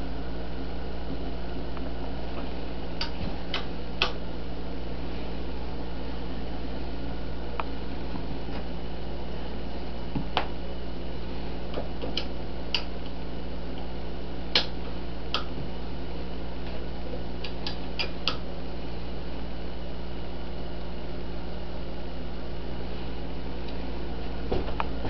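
Steady background hum with scattered light metallic clicks and ticks as an Allen wrench turns the bolts holding a metal rear grab bar to a three-wheeler's frame.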